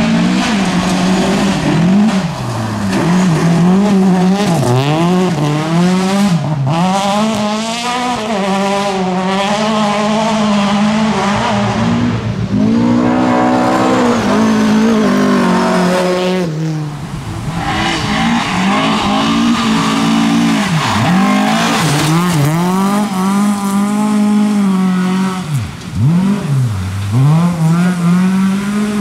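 Tuned rear-wheel-drive Volvo rally car engines driven hard, the revs climbing and then dropping sharply again and again as the throttle is lifted and gears are changed. The sound comes from several separate runs, one after another.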